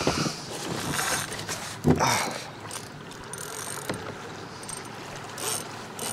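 Fishing reel being cranked as a fish is hooked, its gears and handle ticking, with a sharp thump about two seconds in.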